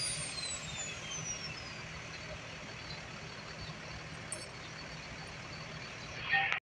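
A Mercedes-Benz OH 1626 bus's rear-mounted diesel engine idling with a steady low hum. A high turbo whistle falls in pitch and fades away over the first two seconds as the turbo spools down. A brief louder sound comes just before the end.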